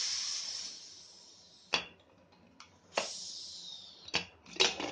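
Aluminium pressure cooker being opened: leftover steam hisses out twice, each burst fading over a second or so, with sharp metal clicks from the lid and weight in between and near the end.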